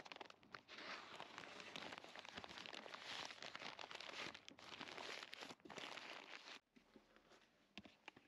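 Faint rustling and crinkling of newspaper being handled and crumpled, stopping about six and a half seconds in, followed by near silence with a few faint ticks near the end.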